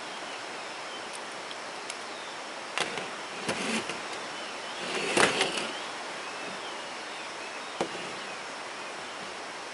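Metal clicks and clacks of an Iwatani Junior Compact Burner being set up and a gas cassette canister fitted to it, the loudest clatter about five seconds in as the canister goes into its connector, and a single click near the end. A steady hiss with faint chirps lies underneath.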